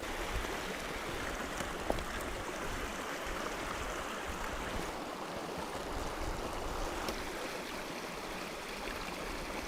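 Glacial meltwater stream running: a steady rush of flowing water.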